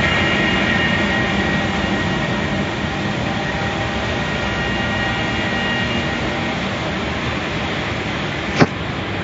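Automatic car wash machinery running: a loud, steady rushing noise with a faint whine, and one sharp click near the end.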